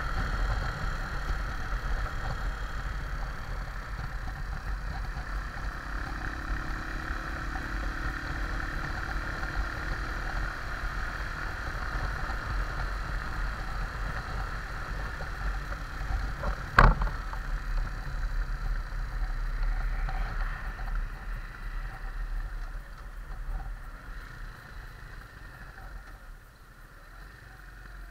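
Junak motorcycle riding along a road: steady engine and wind noise on the bike-mounted camera, with one sharp knock about two-thirds of the way through. The noise eases off near the end as the bike slows.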